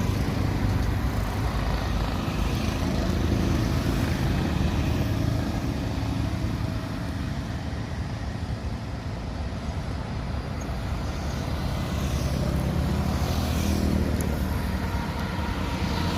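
Heavy construction machinery's diesel engine running steadily with a low rumble, easing off somewhat in the middle and building again toward the end.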